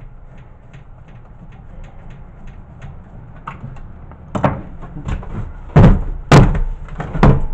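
The plastic front panel of a General Electric VHS player being worked loose and pulled off its chassis: light clicks of plastic at first, then a handful of loud knocks and clatters in the last three seconds.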